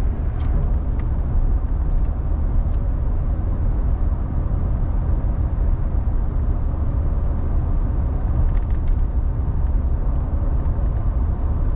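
Steady low rumble of a freight train carrying intermodal trailers rolling past, heard from inside a truck cab, with a few faint ticks.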